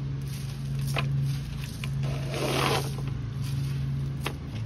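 Small gravel stones clicking as they are picked up and dropped by hand, with a short rattle of a handful of gravel about halfway through, over a steady low hum.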